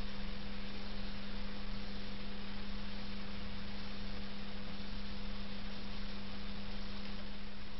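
A steady low hum with a fainter higher tone over an even hiss.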